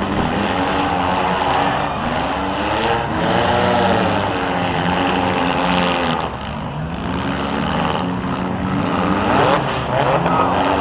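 Several small cars' engines revving and running together in a demolition derby, their pitches climbing and falling over one another.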